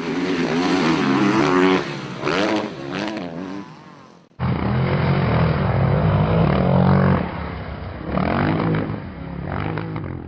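Motorcycle engine revving sound effects laid over the footage, with its pitch rising and falling. About four seconds in, one clip is cut off suddenly and spliced into a second, deeper-sounding engine clip.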